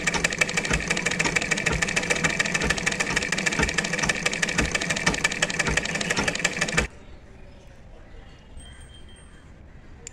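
Old black domestic sewing machine running at speed with a rapid, even clatter of ticks while a bobbin is being wound on it. It stops abruptly about seven seconds in.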